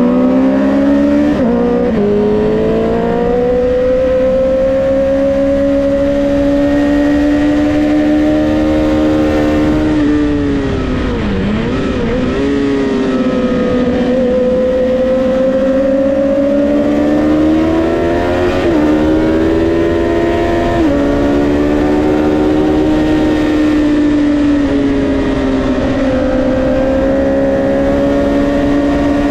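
Honda CBR650R inline-four engine racing at high revs, its pitch climbing in each gear and dropping briefly at each upshift. About eleven seconds in, the revs fall with a few quick blips during braking and downshifting, then climb again. A steady rush of wind and road noise runs under it.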